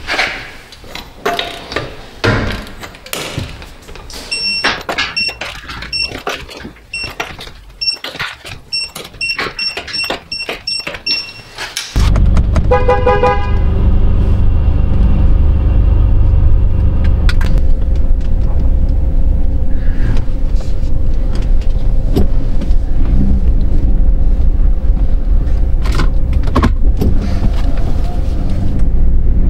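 Clicks and knocks with a vehicle warning chime beeping about twice a second. About twelve seconds in, the sound switches suddenly to the 2017 Chevrolet Colorado pickup running, a loud steady low rumble that lasts to the end.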